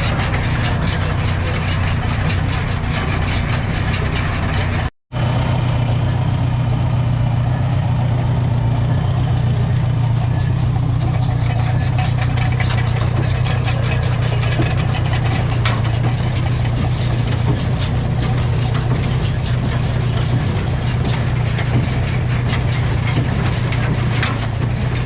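Engine idling steadily with a constant low hum, broken once by a brief cut to silence about five seconds in.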